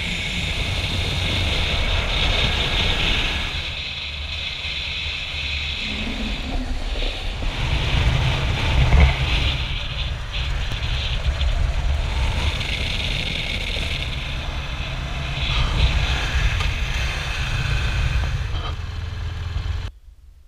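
Motorcycle running along a winding road, its engine rumble mixed with wind rushing over the camera; the sound cuts off suddenly near the end.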